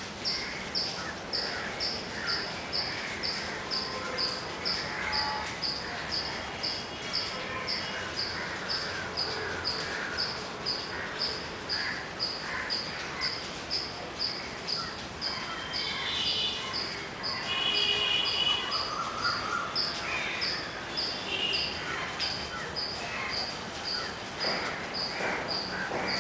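A high, short chirp repeated steadily about twice a second, over scattered bird calls and trills.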